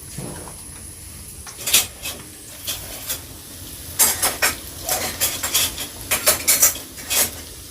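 A metal utensil scraping and clinking against a cooking pot as food is stirred: a few scattered clatters at first, then a quick run of them from about four seconds in.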